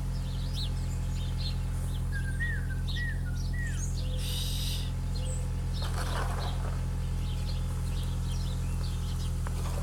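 Small birds chirping and calling, with a run of three short down-slurred whistles a few seconds in, over a steady low hum.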